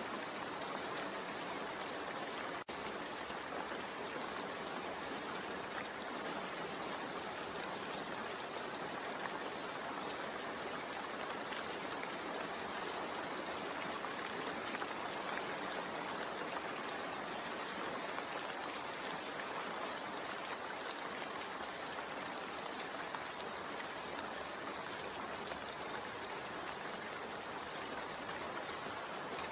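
Steady recorded rain, an even hiss of falling water, with a momentary dropout a little under three seconds in.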